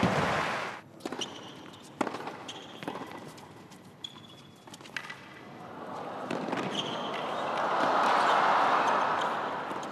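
Tennis ball struck by rackets in a rally: a handful of sharp pops, about a second apart in the first half. Then crowd noise, cheering and applause, swells over the second half.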